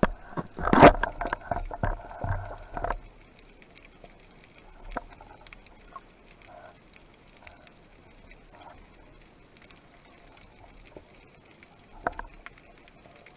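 Water splashing and sloshing for about the first three seconds, then a muffled hush with scattered faint clicks and taps.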